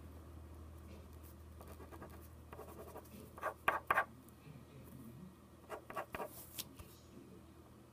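Drawing strokes on paper: a few short scratchy strokes about three and a half seconds in, and another group around six seconds in, over a faint low hum.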